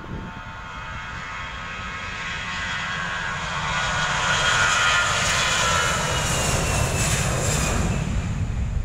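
Jet engines of an Airbus A320-family airliner running at high power as it moves at speed along the runway. The sound builds over the first four seconds and then holds, with a whine that falls in pitch as the jet passes, over a low rumble.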